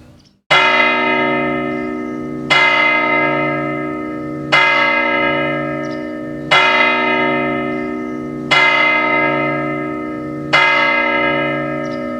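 Clock-tower bell striking the hour six times, one stroke every two seconds, each stroke ringing on and fading into the next: the count of six tells the hour as six o'clock.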